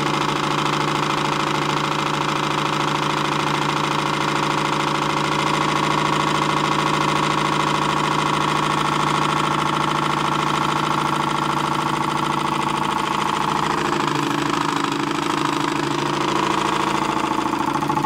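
Homemade Stirling engine built from cans, running steadily at a little over 800 RPM with an even mechanical hum and rattle; its tone changes somewhat about 14 seconds in.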